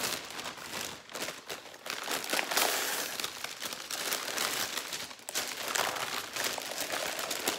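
Paper wrapping crinkling and rustling as it is pulled open by hand, with short lulls about a second in and just past five seconds.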